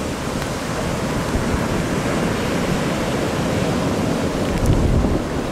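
Heavy hurricane-driven surf breaking and crashing against a fishing pier's pilings, a continuous roar of churning water, with strong wind buffeting the microphone.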